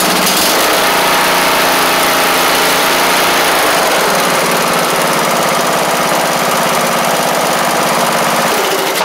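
A lawn tractor's freshly swapped-in Briggs & Stratton 19.5 hp engine running steadily, its pitch shifting slightly about four seconds in.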